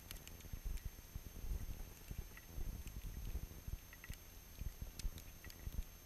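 Wind buffeting an outdoor camera microphone, an uneven low rumble that rises and falls, with scattered faint high ticks.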